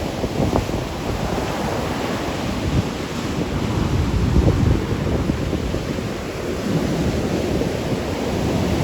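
Rough post-storm surf washing and breaking on the beach and rocks in a continuous rush, with wind buffeting the microphone in irregular low rumbles.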